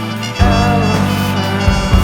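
Background music with sustained bass and guitar chords, moving to a new, louder chord about half a second in.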